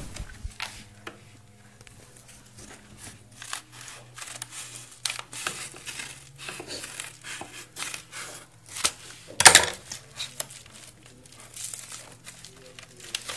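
Scissors cutting open a padded paper mailer: a run of crinkling, crackling snips and rustles of the envelope, with one louder sharp crackle about two-thirds of the way through.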